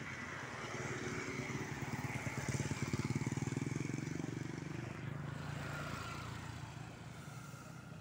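A motor vehicle engine running with a fast, even firing pulse, growing louder to a peak about three seconds in and then fading away.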